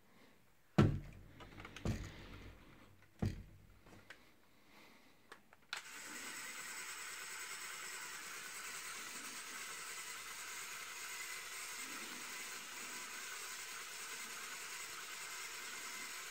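A few sharp knocks and clicks of plastic Lego parts being handled, then, about six seconds in, a steady whir from the Lego minigun's small battery-powered electric motor running.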